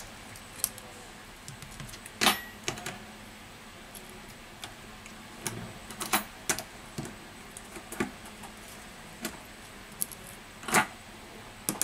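Irregular small clicks and taps from fingers working a display flex cable and connectors inside an opened smartphone, with two louder clicks about two seconds in and near the end.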